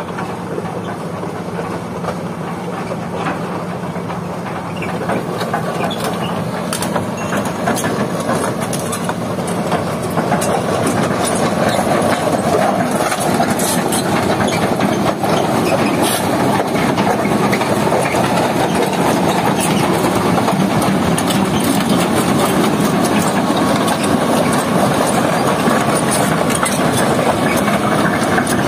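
Hitachi crawler excavator travelling on its steel tracks: the diesel engine runs steadily under a continuous clatter of track links, growing louder from about four seconds in to about twelve seconds in and then holding steady.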